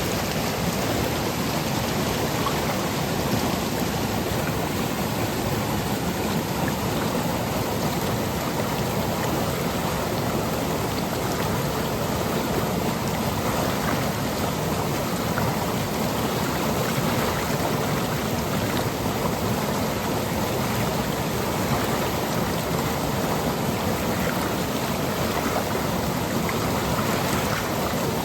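Seasonal stream swollen by monsoon rain, its water running over rocks and pebbles in a steady, even rush.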